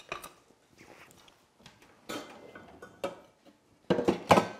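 Light clicks and knocks of bowls and utensils being handled on a kitchen counter, with a louder cluster of clatter just before the end.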